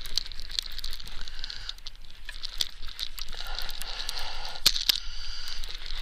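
Irregular clicks and crackles of a fishing rod and reel being handled and cranked while a hooked fish is played in, over a faint hiss.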